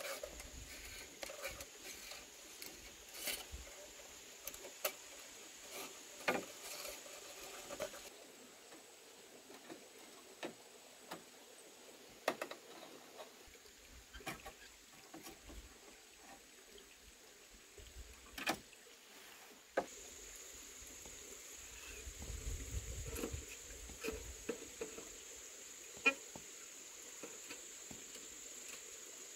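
Scattered light knocks and taps, over a steady high-pitched buzz that stops about eight seconds in and comes back about twelve seconds later.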